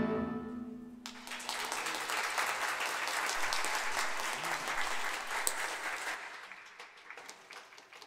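The string-and-flute ensemble's final held chord dies away, then a small audience claps for several seconds, the clapping thinning out and fading near the end.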